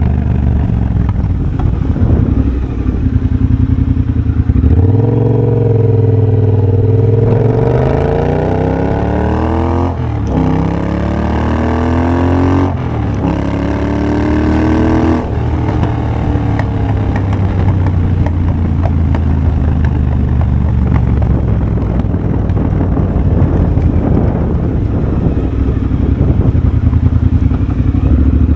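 2023 Triumph Bobber's 1200cc parallel twin running through a de-catted X-pipe and Motone shorty exhaust, pulling hard up through the gears. The pitch climbs, drops sharply at the shifts about ten and thirteen seconds in, and climbs again. About halfway through the throttle closes and the bike settles back to a lower, rougher steady run.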